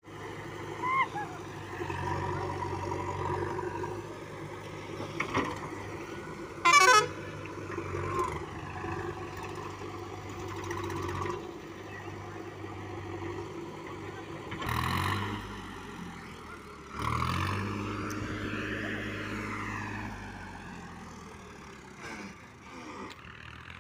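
Diesel engines of a VST tractor and a JCB backhoe loader running steadily as the tractor works a loaded trolley up a dirt slope. About seven seconds in there is a brief, very loud high-pitched sound that sweeps up and down in pitch, and the engine note rises and falls again near the end.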